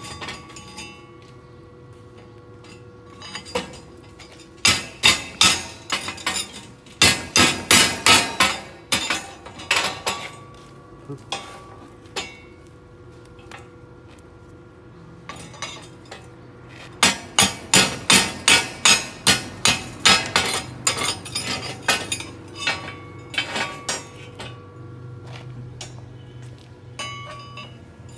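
Chipping hammer striking a freshly welded steel fillet joint to knock off the slag: runs of sharp metallic taps, several a second, with the steel plate ringing after them. Two long runs of strikes, about five seconds in and again past the middle, with scattered single taps between.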